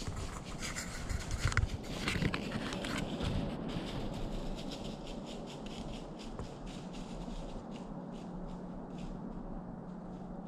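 Scraping and rustling handling noise as the camera is turned, loudest in the first three seconds, then lighter crackling ticks with a faint steady low hum.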